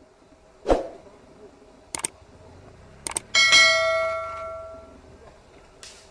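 A few sharp knocks, then a loud metallic clang that rings on and fades away over about a second and a half.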